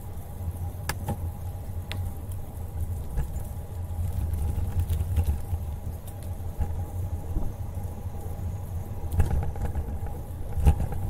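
Riding noise from a bicycle-mounted camera: wind buffeting the microphone and tyres rolling on a paved trail, a steady low rumble. A few sharp clicks come about a second in and again near the end.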